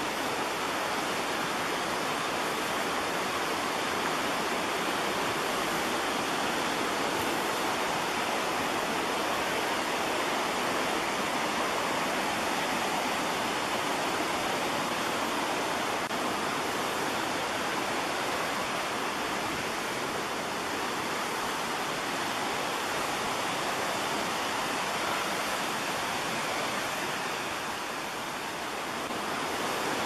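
Steady rush of a forest creek running over small waterfalls, an even, unbroken sound of water that dips slightly near the end.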